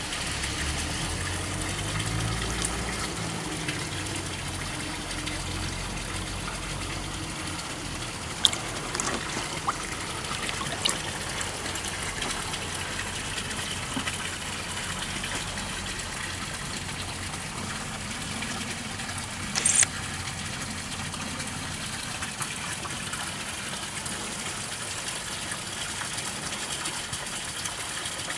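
Steady rush of running water, with a few brief knocks; the loudest, a short clatter, comes about twenty seconds in.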